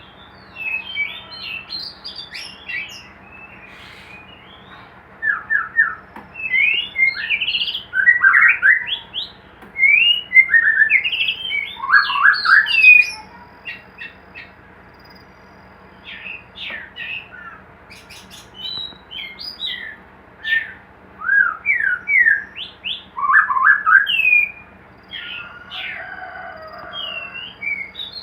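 White-rumped shama (murai batu) calling and singing in bursts of varied whistles, chirps and quick falling notes, with short pauses between phrases.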